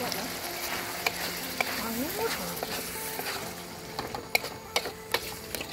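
Sambal with sliced onions and petai beans sizzling in a wok as a metal spatula stirs it. The spatula clicks and scrapes against the wok now and then, more often in the second half.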